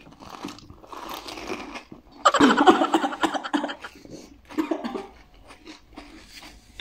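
Crisp pani puri shells being bitten and chewed, with crunching in short bursts. About two seconds in comes a louder, voice-like sound lasting about a second.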